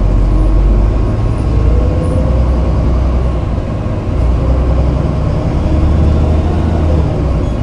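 Toei city bus running, heard from inside the cabin: a heavy, steady low rumble with a whine that rises in pitch during the first second or two and again more faintly midway.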